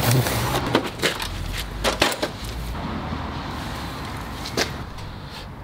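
Cardboard box and packaging being handled: a quick run of knocks, clicks and rustling, then quieter rustling with one more click near the end.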